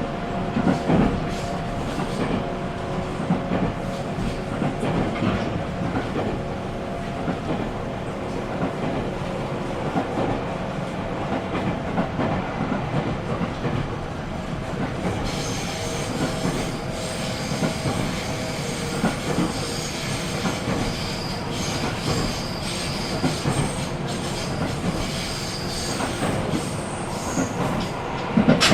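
JR 313 series electric train running, heard from inside the car: a steady rumble with wheel-on-rail clatter and a faint motor whine. About halfway through, high-pitched wheel squeal joins in and keeps on to the end.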